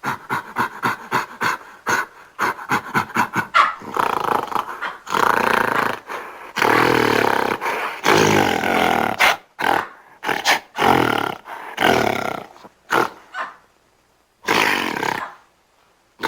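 Primate creature calls made from gorilla and baboon recordings: a quick run of short calls, then longer roars, then a string of separate sharp bark-like calls with pauses between them.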